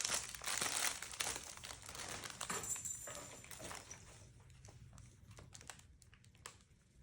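Plastic packaging crinkling as a toy is unwrapped, loudest in the first few seconds, then dying down to scattered light rustles and ticks.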